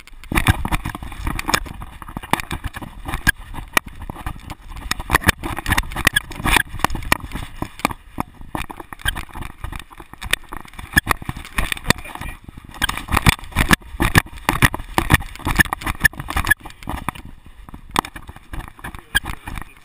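A GoPro HERO2 in a harness mount on a running dog's back, rattling and clattering with every stride because the mount's screw is loose. Dense, irregular knocks with short lulls about eight and seventeen seconds in.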